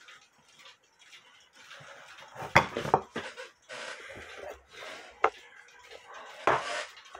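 A cuckoo-clock weight chain clinking and knocking on a wooden workbench as it is handled, with rustling between a few sharp clicks.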